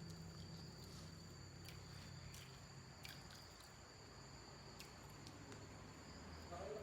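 Faint close-up chewing of papaya-leaf urap, with soft wet mouth clicks now and then, over a steady high-pitched whine.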